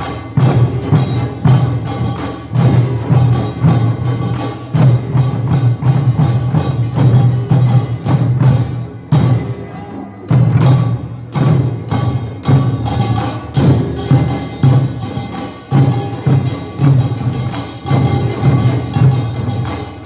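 Korean nongak farmers' percussion band playing: drums and gongs struck in a dense, fast rhythm, with the metal ringing over heavy drum beats. It eases briefly about halfway through.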